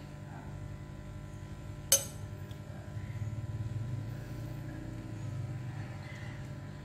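Metal slotted spoon stirring in a glass cooking pot, striking it with one sharp clink about two seconds in. A steady low hum runs underneath.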